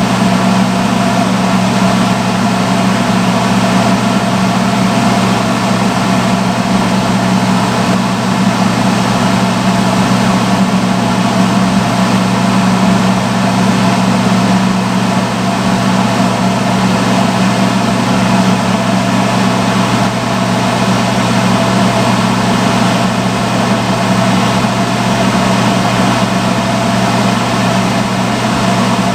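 Salon hood hair dryer running: a loud, steady blower noise with a low hum that does not change.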